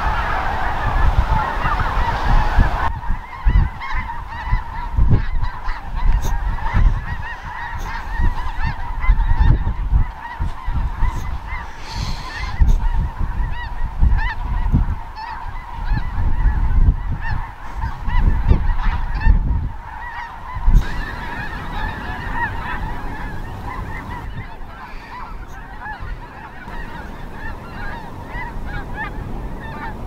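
A huge flock of snow geese calling in flight: a dense, continuous chorus of countless overlapping honks. Low rumbling gusts run underneath for the first two-thirds, then ease off.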